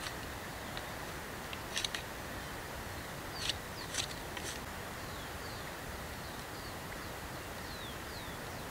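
Small birds giving a series of short, high, falling chirps over a steady background hiss of woodland ambience, with a few sharp clicks in the first half.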